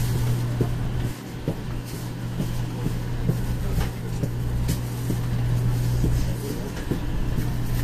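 Interior noise of a 500 series Shinkansen passenger car: a steady low hum and rumble, with small knocks and clicks scattered throughout.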